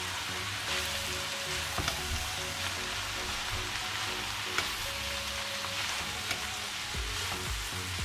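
Chopped mixed vegetables sizzling in a frying pan as they are stir-fried and tossed with a spatula, with a few sharp clicks of the spatula against the pan.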